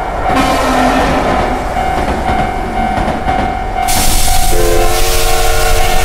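Japanese level-crossing warning bell ringing in a steady repeated kan-kan while a train rattles through the crossing. The train's rushing noise grows louder about four seconds in, and its horn sounds as a held chord from about four and a half seconds in.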